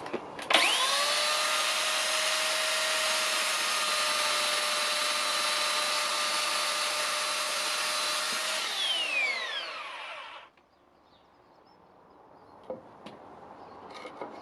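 Blaupunkt CS3000 2200W electric chainsaw's motor switched on, whining quickly up to a steady high pitch and holding it for about eight seconds. When the trigger is released the pitch falls and the motor winds down over about two seconds to stillness.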